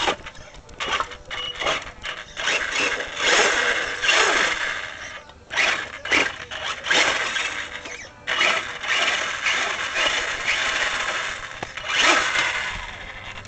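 Axial Yeti RC rock racer's electric motor and drivetrain whirring in irregular bursts as the throttle is worked, with the tyres and chassis knocking and scraping on wooden planks as it crawls over them.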